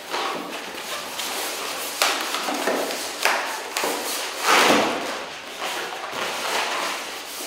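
Inflated purple latex 260 modelling balloon being handled and tied off: the latex rubbing against itself and the hands in a series of strokes, the loudest about halfway through.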